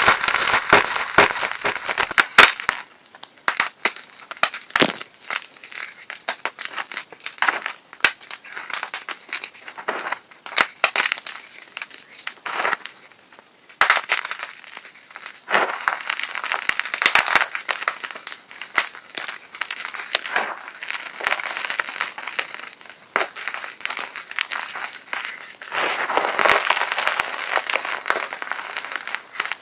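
Hard chalk being crushed and crumbled, a dense crackling crunch of breaking chalk. It is loudest for the first two seconds, then goes on as irregular crunches and crackles of chunks breaking.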